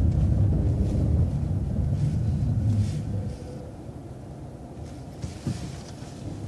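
Transit bus engine and road rumble during a left turn, a steady low rumble that eases off and drops noticeably quieter about three seconds in.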